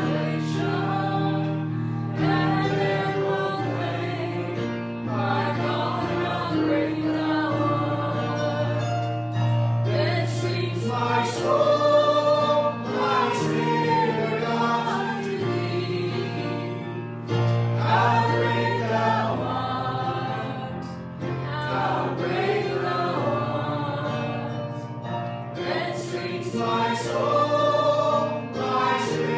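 Gospel-style choral singing over long held low chords: a worship song.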